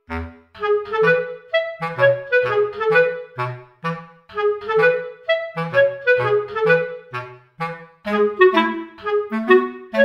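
Light, playful background music of short, detached notes on a reedy woodwind over a bouncing bass line.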